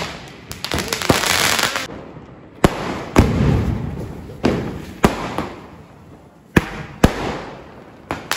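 Firecrackers going off: a string of sharp bangs, roughly one a second, each trailing off into crackle and hiss, with a dense spell of hissing about a second in.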